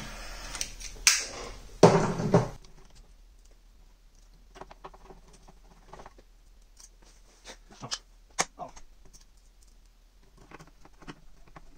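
A lighter held to the work gives a hissing rush with two sharp clicks, shrinking heat-shrink tubing on a wire. After about two and a half seconds it is quiet apart from faint scattered clicks and taps of a screwdriver and hands working inside the light fixture's base.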